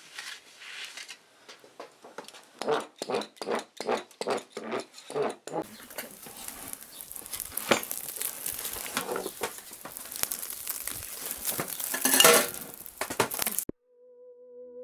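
A quick run of short clattering knocks over the first five seconds. Then a steady hiss and crackle from the open wood fire under the bread shelf, with one louder scrape near the end. It cuts off suddenly, and soft flute-like music begins.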